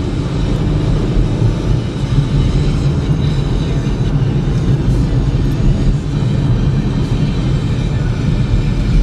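Inside the cabin of a 2012 Chevy Equinox with a four-cylinder engine while it drives: steady low rumble of engine and road noise.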